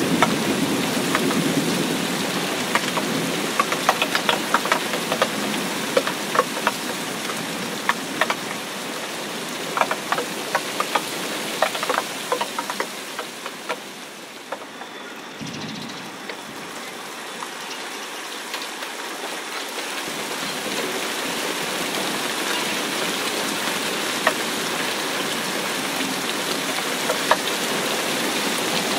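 Rain falling into a puddle of standing water over grass: a steady hiss with many separate drops splashing close by, most often in the first half.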